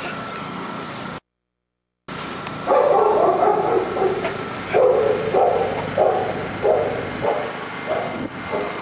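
Urban search-and-rescue dog barking over and over, starting about two and a half seconds in, with the barks coming about twice a second. This is a bark alert, the dog's signal to its handler that it has found a live person under rubble.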